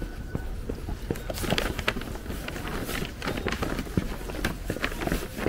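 Footsteps walking at a steady pace, about two steps a second, over an outdoor background hiss.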